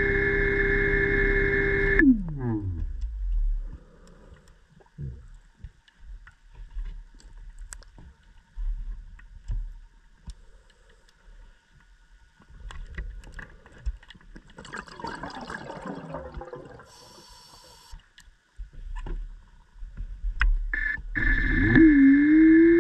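Underwater scooter (diver propulsion vehicle) electric motor whining steadily, then spinning down with a falling pitch about two seconds in. Scattered clicks follow, and near the end the motor whines back up in a rising pitch and settles to a steady whine.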